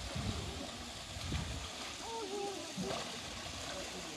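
Water sloshing and splashing as a polar bear swims and paddles through its pool, with onlookers' voices and a high voice about two seconds in.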